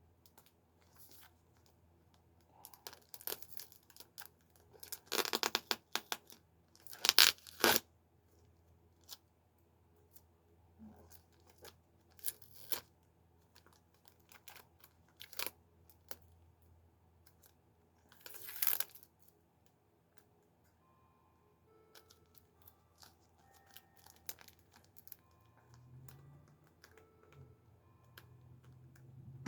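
Tight, air-sealed packaging around a toy figure being torn and crinkled open, in irregular bursts. The loudest tearing comes around five to seven seconds in and again near eighteen seconds, with quieter rustling between.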